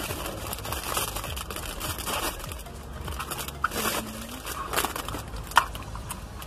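Clear plastic packaging crinkling and rustling as an instax mini film pack is handled, with a few sharp clicks from the camera and film pack, one standing out about five and a half seconds in.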